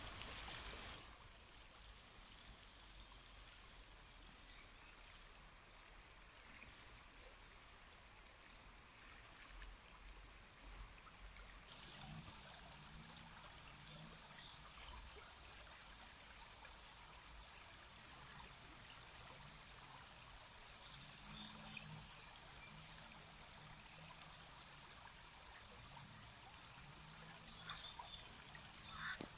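Shallow river running over stones: a faint, steady rush of water.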